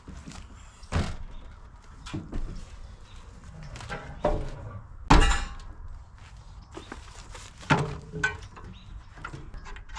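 Scattered knocks and clunks at an RV's open entry door as things are handled there, about seven in all, the loudest about five seconds in.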